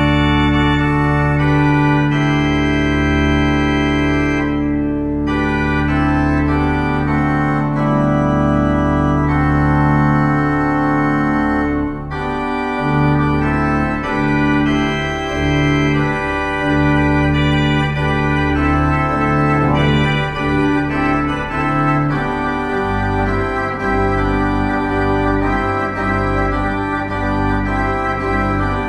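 Organ postlude closing a church service: slow, sustained chords that change every few seconds, with deeper bass notes coming in near the end.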